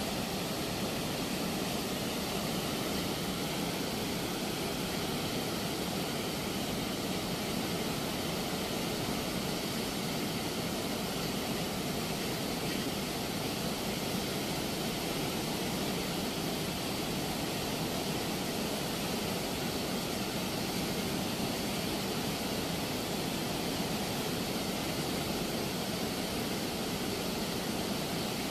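Turbulent river water rushing out through the open sluice gates of a movable weir: a steady, even rushing noise.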